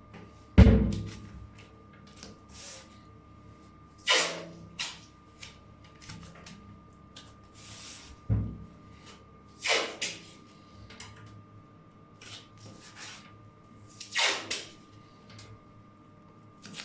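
Hand work on a bathtub during an enamel chip repair: scattered knocks and several short scraping strokes, with a heavy thump about half a second in and a duller one about eight seconds in.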